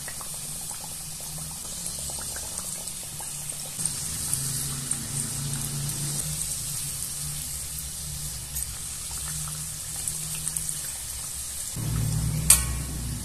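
Empanadas deep-frying in hot oil: a steady bubbling sizzle with fine crackles, over a low steady hum. A single sharp knock comes near the end.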